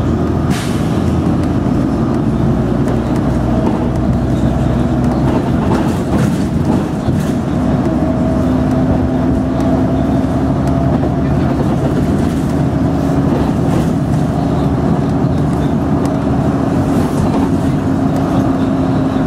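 City bus running along the road, heard from inside the passenger cabin: a steady engine drone and road rumble, its hum rising a little in pitch about eight seconds in as it speeds up.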